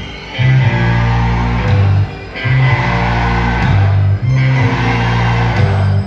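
Live rock band playing loud, with electric guitar over sustained bass notes; the band drops out briefly twice.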